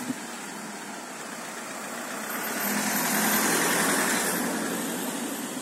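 A car driving past on a narrow street. Its engine and tyre noise swell over a couple of seconds, peak a little past the middle, then fade as it moves away.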